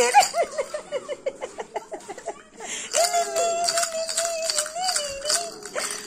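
A quick run of laughter in short rapid syllables, followed about three seconds in by a long, high-pitched held vocal sound.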